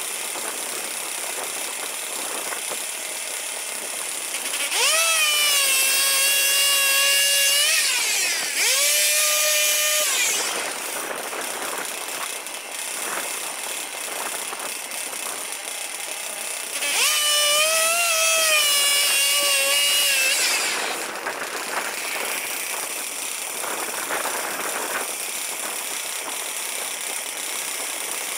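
A small engine running with a steady mechanical hum; twice it rises to a louder, steady whine lasting about four to five seconds, then drops back.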